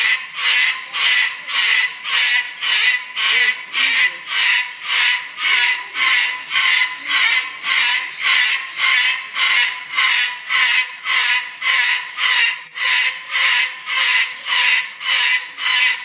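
White cockatoo screeching in a steady rhythm, about two harsh calls a second, on and on without a break.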